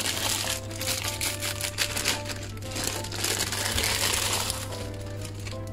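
Thin plastic film crinkling as it is peeled off a frozen sheet of meat in a pan, with soft background music.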